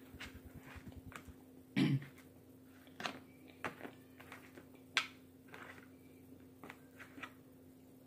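Close-miked eating: chewing and wet mouth smacks, with a fork clicking against a plastic food container as cheese-and-bacon-topped fries are picked up. A short low hum of the voice, like an "mm", comes about two seconds in, over a steady faint electrical hum.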